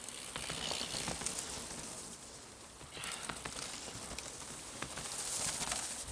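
Mountain bikes passing close on a dirt and leaf-strewn trail: tyres hissing and crackling over the ground, with scattered clicks and rattles, loudest as a rider goes right by near the end.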